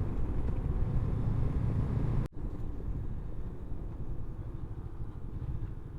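Honda CB500X's parallel-twin engine running steadily under way, a low rumble mixed with road noise. It cuts out abruptly about two seconds in, then carries on a little quieter.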